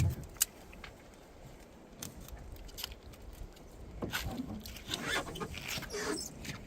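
Tuck Tape being pulled off the roll in short noisy pulls and pressed along a cracked canoe hull, with a sharp knock at the start and a click just after.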